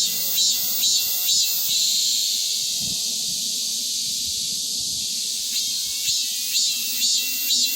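Cicadas singing loudly, a shrill buzz that pulses about twice a second, runs on as a steady drone for a few seconds in the middle, then pulses again near the end.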